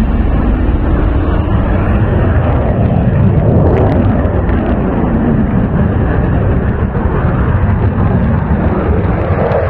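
Saab JAS 39 Gripen fighter's Volvo RM12 jet engine running at takeoff power: a loud, steady jet roar as the fighter lifts off and stays low over the runway.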